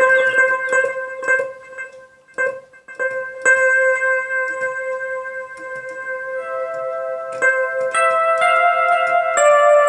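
Korg Pa50SD arranger keyboard voice with an electric piano or organ sound, playing held notes. A chord builds up as further notes join about six, eight and nine and a half seconds in. The sound thins out briefly about two to three seconds in.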